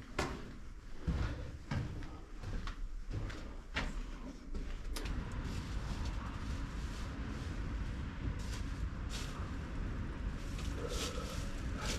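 Knocks and scrapes of someone moving through a concrete shelter over rubble. About five seconds in a steady low rumble sets in under them.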